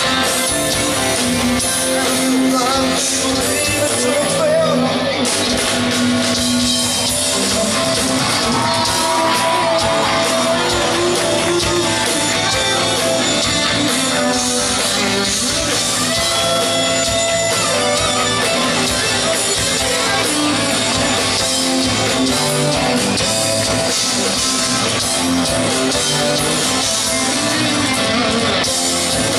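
Live rock band playing an instrumental passage: electric guitars over drums, with lead guitar lines on top. It is a loud, steady full-band sound, recorded from the audience in a large venue.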